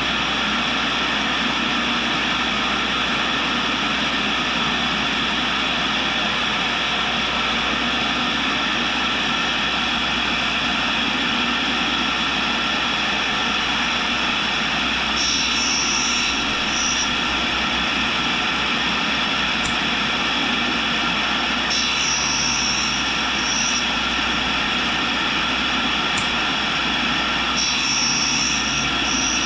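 Tool and cutter grinder running steadily, its wheel grinding dry on the secondary clearance angle of a high-speed steel roughing end mill. Three times, a few seconds apart, a high-pitched grinding whine rises for about two seconds as the cutter is passed across the wheel.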